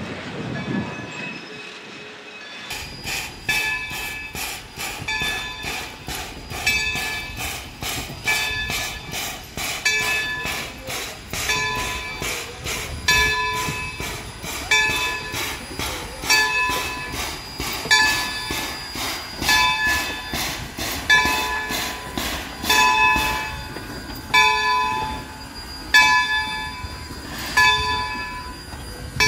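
Steam locomotive bell on Baldwin 0-6-0 switcher #26 ringing steadily as the engine moves, a clang about every 0.8 seconds, starting a few seconds in, over a low running rumble.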